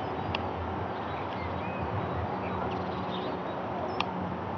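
Small propeller plane droning high overhead, a steady low hum that grows stronger about halfway through. Small birds chirp, and there are a few sharp clicks.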